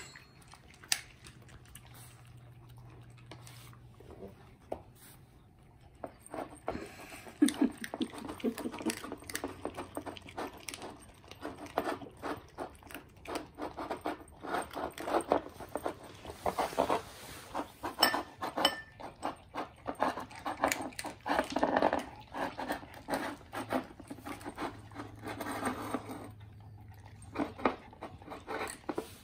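A beagle crunching dry kibble from a ceramic bowl. Quiet at first, then a dense run of quick crunches and clicks of kibble against the bowl begins about six seconds in and keeps going.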